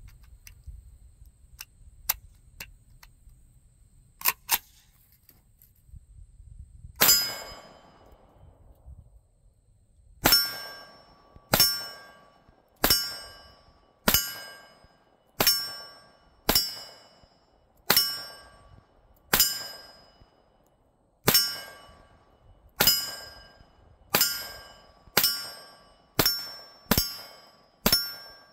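Century Arms AK 9mm carbine fired in slow single shots at a steel spinning target. Each shot is followed by the ringing clang of the steel being hit. There are a few small clicks, then sixteen shots starting about seven seconds in, about one every second and a half, coming quicker near the end.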